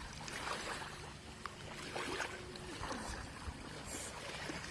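Shallow water sloshing and splashing faintly around a swimming pug and a wading man, with wind rumbling on the microphone.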